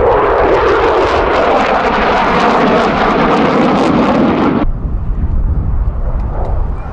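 F-16 fighter jet engine roaring loudly overhead with a crackling edge; about four and a half seconds in the roar cuts off abruptly, leaving a fainter low rumble.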